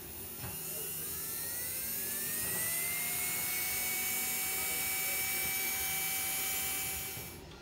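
Small brushed DC motor running unloaded with a bare shaft, brought up to speed with a knob on its speed controller: a whine that rises in pitch for about three seconds, holds steady, then cuts off suddenly near the end.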